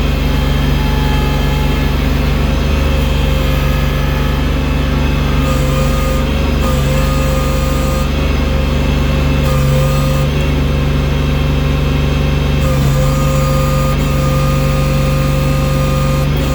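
Engine of a machine fitted with a front loader bucket, running steadily while moving heavy snow, with a fainter whine that steps up and down in pitch a few times.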